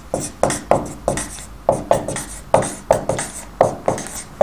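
Whiteboard marker writing in capital letters on a whiteboard: a quick run of short taps and scrapes, about three to four a second, one for each stroke of the letters.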